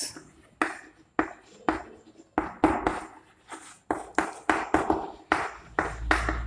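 Chalk writing on a chalkboard: a quick run of sharp taps and short strokes as the letters are written, about two or three a second.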